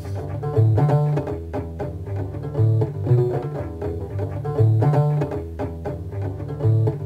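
Music: a low bass line repeating in a steady pattern, with short notes above it.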